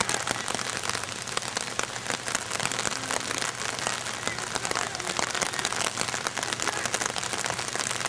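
Steady rain with a dense patter of drops.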